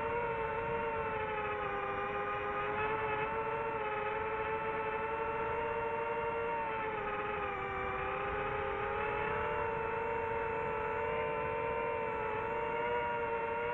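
DJI FPV drone's motors and propellers whining in flight, recorded by the drone's onboard camera, the pitch sagging and rising a little with throttle changes.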